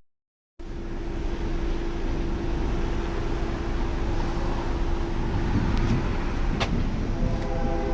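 Car road and engine noise heard from inside a moving car, a steady rumble with a low hum, after a brief dropout at the very start. Near the end a horn starts sounding.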